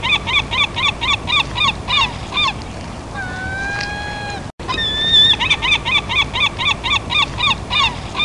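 Gulls calling: a quick run of short yelping calls, about four a second, then one longer drawn-out call. After a brief break about halfway through, the same sequence plays again.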